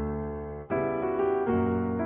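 Background piano music: gentle sustained chords, with a new chord struck about two-thirds of a second in and another near the end.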